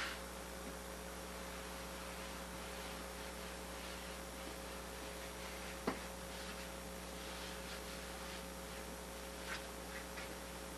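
Steady electrical hum over faint background noise, with one sharp click about six seconds in.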